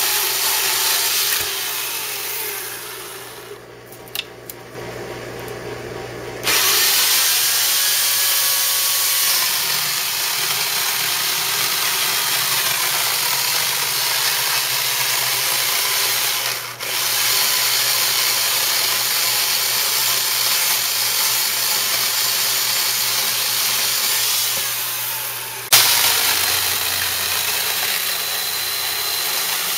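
Portland 14-inch corded electric chainsaw running and cutting into the trunk of a dead peach tree. The sound drops away a few seconds in and comes back abruptly at about six seconds, with another sudden change near the end.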